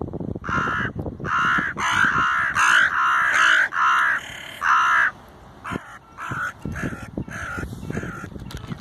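Crows cawing: a run of about eight loud caws in quick succession, then several quieter, shorter calls.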